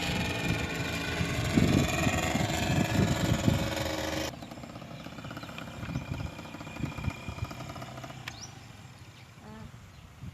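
Paramotor engine running with wind buffeting the microphone, cut off abruptly about four seconds in. Then quieter outdoor background with a couple of short chirps near the end.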